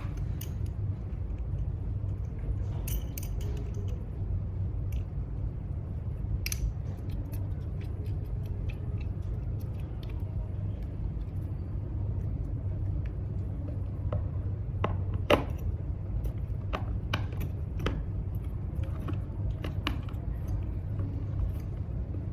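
Scattered light clicks and knocks of plastic and metal mounting hardware being handled and fitted to a plastic enclosure, more frequent in the second half, over a steady low hum.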